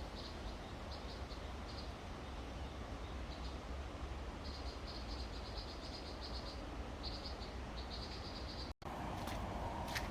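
High-pitched chirping from a small forest animal in rapid pulsed trains, each a second or so long, over a low steady rumble. Near the end the sound cuts out for an instant, then a few sharp clicks follow.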